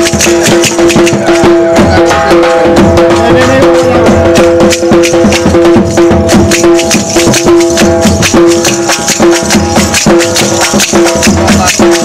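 Loud music: steady held notes over fast, busy drumming with a rattle.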